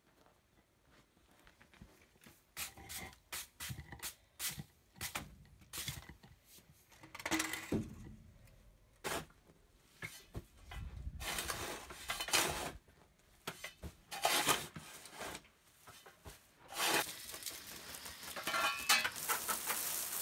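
Concrete pavers knocking and scraping as they are set on dirt, then a shovel scraping and throwing soil, and near the end a steady spray of a garden hose wetting the soil and pavers.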